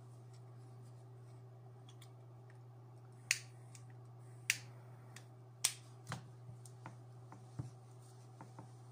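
Sharp clicks from a small object being worked in the hands: three loud ones about a second apart, then several fainter ones, over a steady low hum.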